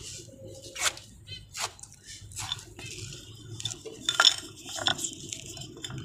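Terracotta bird water bowl handled and rubbed out by hand, giving scattered light knocks and scrapes of clay.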